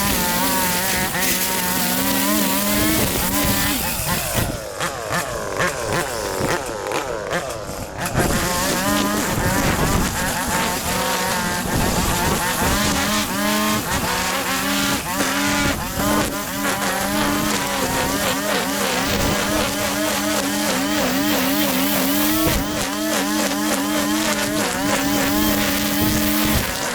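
Small two-stroke petrol engine of a handheld garden power tool running at high speed. It eases off and falls in pitch from about four to eight seconds in, then picks back up to full speed.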